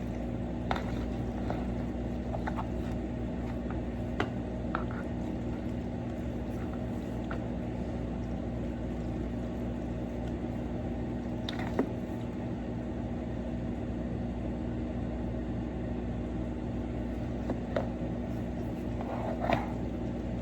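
A steady low machine hum, like a kitchen appliance or fan running, with a few sharp clicks and knocks scattered through it.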